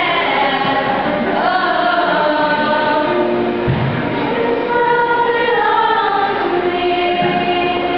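Middle-school show choir singing, the voices holding long notes.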